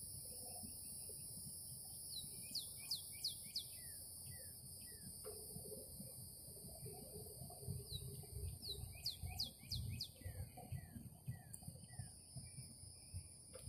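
A songbird sings two phrases several seconds apart, each a quick run of four or five downward-slurred notes. Under it runs a steady high-pitched insect drone and a faint, uneven low rumble.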